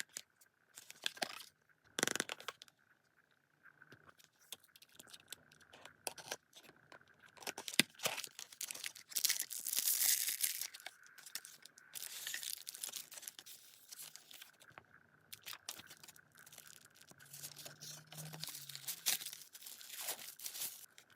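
Packaging being torn open and handled: plastic and paper tearing and crinkling, with scattered clicks and taps, the longest tearing stretches around the middle.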